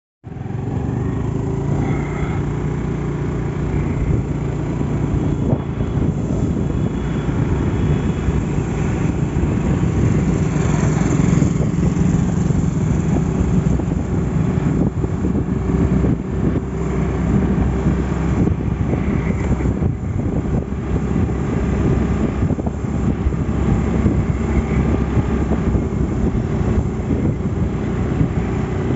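Motorcycle engine running steadily while riding along a road, a continuous low drone.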